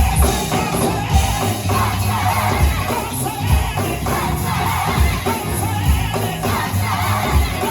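Live gospel choir and band performing an up-tempo song with a steady drum beat and tambourine, the crowd joining in.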